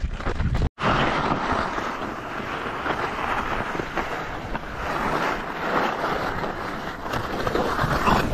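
Wind blowing across a helmet camera's microphone: a steady rushing noise that drops out for an instant near the start.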